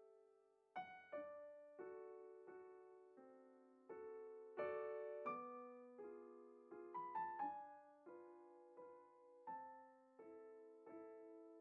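Quiet solo piano music: slow single notes and chords, each struck and left to ring out, with a quicker run of notes about seven seconds in.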